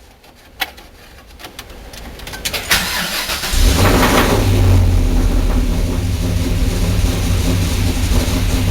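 Cammed LY6 6.0-litre LS V8 being started: a few clicks and cranking build up, and the engine catches about three and a half seconds in. It flares up briefly, then settles into a steady idle.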